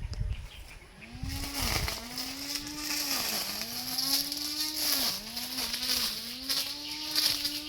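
Small petrol engine of a lawn mower running at high speed while cutting grass, its pitch sagging and recovering every second or two as the blade takes on load.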